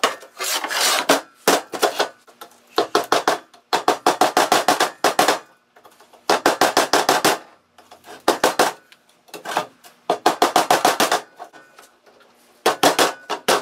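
Hammer driving a screwdriver around the outside of a 47RE/48RE transmission pump's front seal, metal on metal, in repeated bursts of quick strikes with short pauses between. It is breaking loose a tight factory seal that has never been out.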